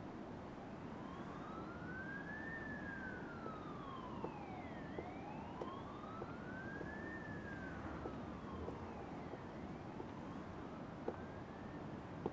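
Ambulance siren wailing, its pitch sliding slowly up and down three times, with a few faint taps underneath.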